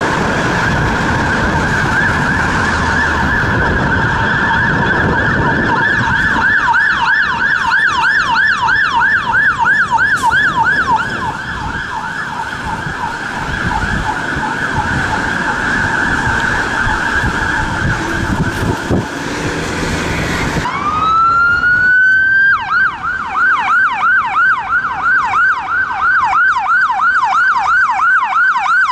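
UK fire engine siren sounding through traffic, steady tones switching for a few seconds to a fast yelp, over road and engine noise; then an ambulance siren winds up from low to high and goes into a fast yelp of about three sweeps a second.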